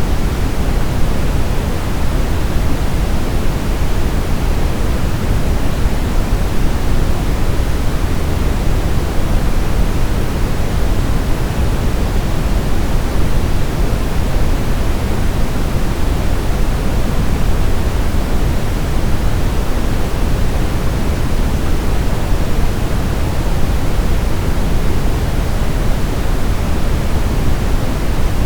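Steady brown noise: an even, deep hiss loudest in the bass and falling away in the treble, with no changes.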